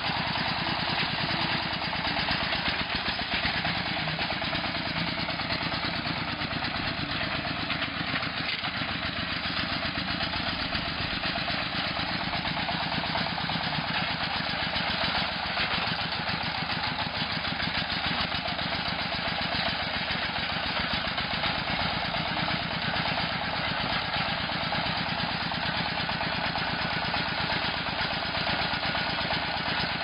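Engine of a homemade hydraulic stump-pulling machine running steadily with a fast, even beat.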